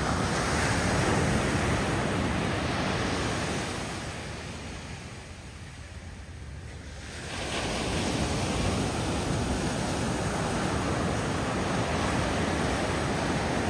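Ocean surf washing on the shore, a steady rush that dies down about four seconds in and swells back up about seven and a half seconds in.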